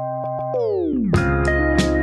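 Background music: a held keyboard chord with light ticking, a falling pitch sweep about half a second in, then a beat with drums coming in about a second in.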